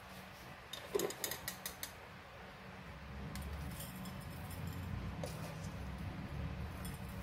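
A spoon clinking against a container in a quick run of sharp clicks about a second in, then soft low handling noise as dry fried garlic is spooned onto the dish.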